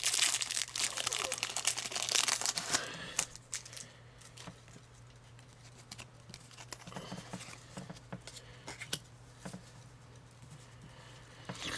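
Foil wrapper of a trading-card booster pack being torn open and crinkled for the first three seconds or so, then quieter, with scattered soft ticks and rustles as the cards are handled.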